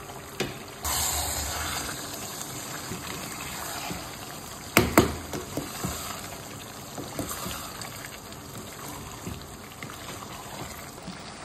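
Thick tomato sauce with prawns, fish and sausage simmering in a stainless steel pot and being stirred with a wooden spoon: wet stirring and bubbling sounds with scattered small clicks, and one sharp knock about five seconds in.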